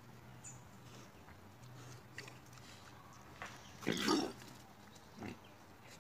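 Wild boar calling: one loud call about four seconds in, then a shorter, quieter one about a second later.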